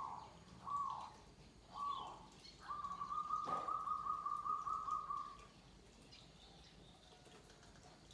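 Zebra dove (perkutut) cooing: three short coos about a second apart, then one long rolling, pulsed coo lasting nearly three seconds. A short click sounds partway through the long coo.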